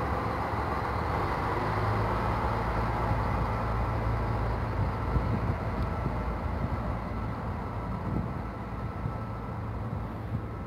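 SNCF X 73500 diesel railcar pulling away from the platform, its diesel engines running steadily under power as it recedes. The sound slowly fades.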